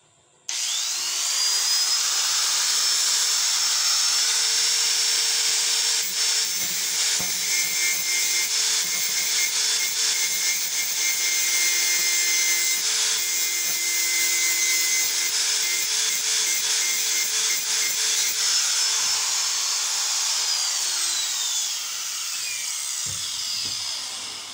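Handheld electric angle grinder switched on about half a second in, its whine rising to speed. It then grinds the steel bandsaw blade with an abrasive disc, the sound wavering and rasping as the disc bites. Near the end it is switched off and its whine falls as it winds down.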